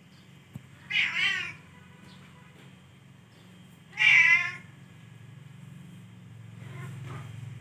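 A kitten meowing: two loud meows, about a second in and about four seconds in, then a fainter meow near the end.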